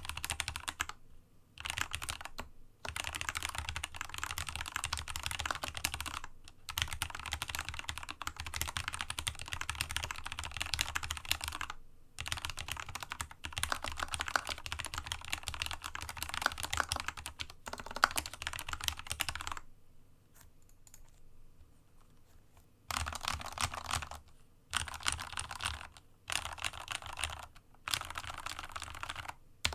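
Typing on a Dygma Raise mechanical keyboard with Cherry MX Red linear switches lubed with a Krytox 105/205g0 mix, set on a desk mat: fast, dense runs of key presses broken by short pauses. About two-thirds through there is a few-second pause, then shorter bursts of typing.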